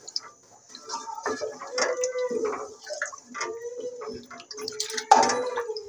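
Wooden spatula stirring and scraping through thin lentil dal in a metal wok, with scattered light knocks and a sharper, louder clatter about five seconds in.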